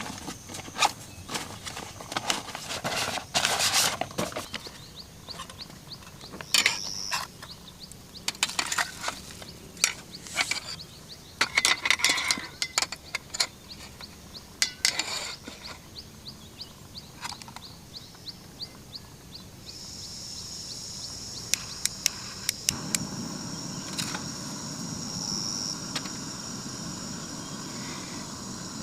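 Irregular clicks, knocks and rustles of camp gear being handled, with a fast run of faint high ticks in the middle. About two-thirds in, a steady high-pitched insect whine sets in.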